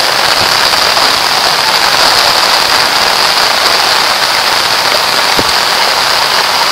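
Steady loud hiss of outdoor noise with a strong high-pitched band running through it, even throughout. A faint tick comes about five and a half seconds in.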